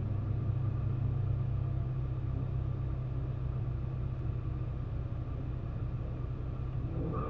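Race car engine idling steadily, a low, even throb with no revving.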